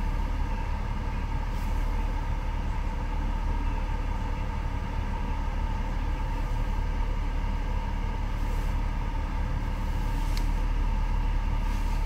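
Steady low rumble of the BMW E46's engine idling, heard inside the cabin, with a constant hum above it. A few faint clicks come through, one near the start and two in the last few seconds.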